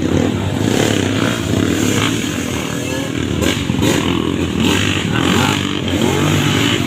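Motocross dirt bike engines racing on a muddy track, revving up and easing off.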